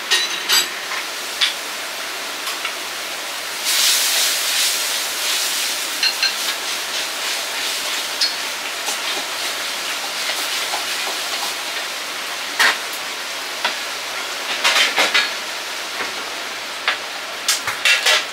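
Chinese restaurant kitchen wok cooking: a steady hiss of frying and gas burner, with scattered sharp metal clanks of ladle and wok. The hiss swells louder about four seconds in, and runs of clanks come a few seconds before the end and again at the end.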